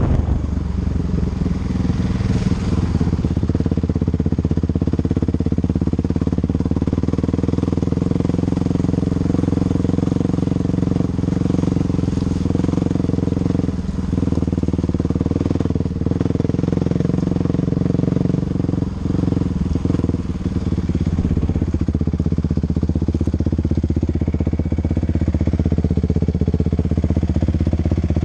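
Off-road vehicle engine running steadily while riding a dirt trail. The throttle eases off briefly a few times a little past the middle.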